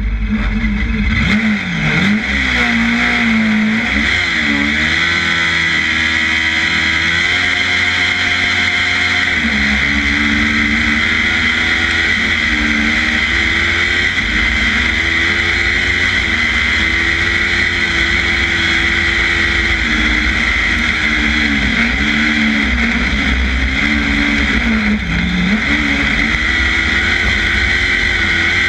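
Kart cross engine at race speed, heard from on board: its pitch rises and dips again and again as the throttle is opened and lifted, over a steady hiss.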